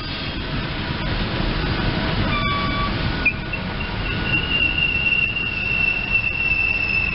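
SEPTA Silverliner electric multiple-unit train running by on the rails, its wheels clicking now and then over rail joints. About three seconds in, a high steady wheel squeal starts and holds.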